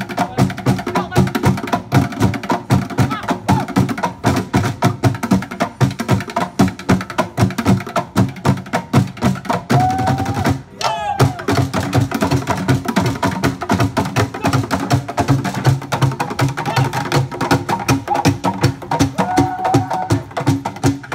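Group percussion played with sticks on plastic jerry cans and plastic barrels: a fast, dense, driving rhythm, with a brief break about ten seconds in.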